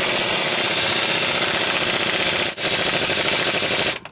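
Power wrench running on the center screw of a harmonic balancer puller, pressing the balancer off a small-block Chevy 350 crankshaft. It runs in loud stretches with a brief break about two and a half seconds in, and stops just before the end.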